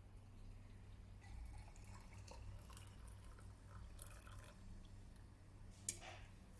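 Near silence: a low steady hum with faint scattered clicks and taps, and one sharp click near the end.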